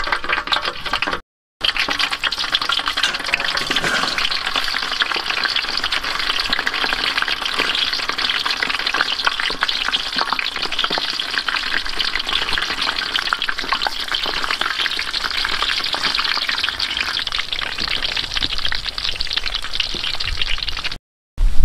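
Hot oil crackling and sizzling steadily in a large steel wok as skewered meatballs and sausages deep-fry. The sound cuts out briefly about a second in and again near the end.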